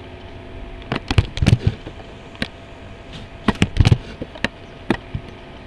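Scattered keystrokes and clicks on a computer keyboard and mouse, a dozen or so separate taps with a quick cluster about three and a half seconds in, over a faint steady hum.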